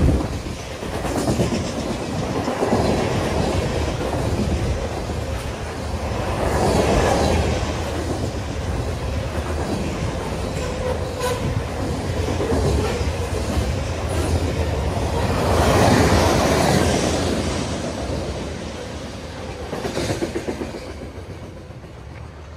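Freight train of tank cars and covered hoppers rolling past at close range: a steady rumble with wheel clatter and occasional sharp clicks, swelling and easing every few seconds. It fades over the last few seconds as the train moves away.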